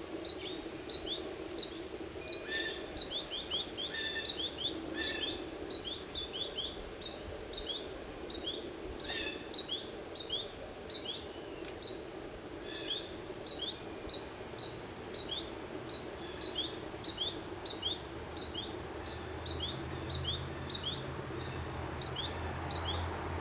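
Juvenile American goldfinch begging calls: a steady, quick run of short high chirps and down-slurred notes, with a few louder, fuller calls mixed in during the first ten seconds. A low hum comes up near the end.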